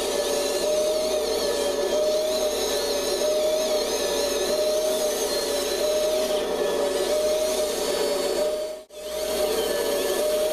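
Electric drive motors and servos of a Kabolite 970 all-electric RC excavator whining steadily as it digs, with a wavering mid-pitched tone. The sound cuts out for a moment about nine seconds in, then resumes.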